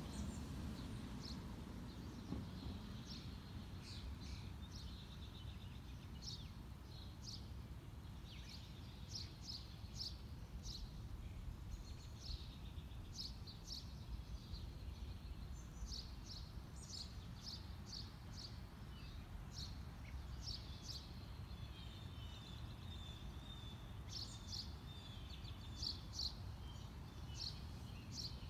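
Small birds chirping: many short, high chirps, some in quick runs, over a low steady outdoor rumble.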